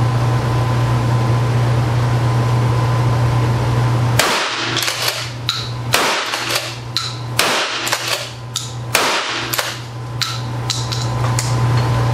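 A 12-gauge Remington 870 pump shotgun in a bullpup chassis fires four shots about one and a half seconds apart. Each shot is followed by the clack of the pump being worked, and a few more clicks come near the end, all over a steady low hum.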